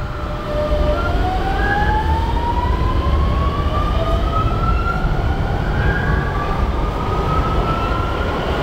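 Metrovalencia electric train pulling out of an underground station: its traction motors whine and climb steadily in pitch as it gathers speed, over a continuous low rumble.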